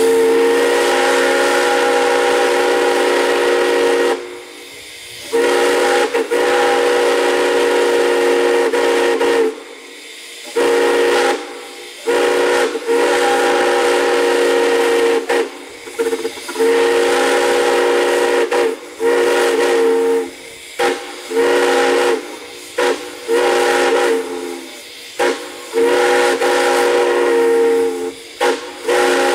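Steam whistle sounding a chord of several notes with a hiss of steam, blown as a series of blasts. First come long blasts of about three to four seconds with brief gaps, then shorter toots closer together.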